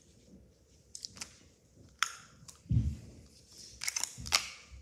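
Handling noise: light clicks and taps of plastic Play-Doh tubs and toy figures being moved about on the floor, with a dull thump a little under three seconds in.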